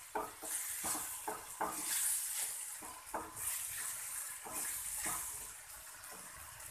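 Wooden spatula stirring mushrooms and tomatoes frying in a kadai: irregular knocks and scrapes against the pan over a steady sizzle, the knocks thinning out after about five seconds.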